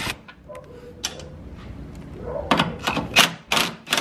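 Sharp mechanical clicks, about three a second, starting about halfway in, from tools working on the car's rusty bumper and headlight fasteners.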